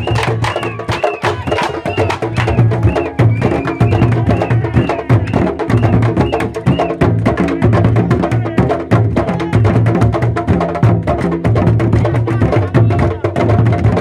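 Uruguayan candombe drums, barrel-shaped wooden tambores each struck with a bare hand and a wooden stick, playing a fast, steady interlocking rhythm. Sharp stick clicks on the drum shells sound over deep hand strokes on the drumheads.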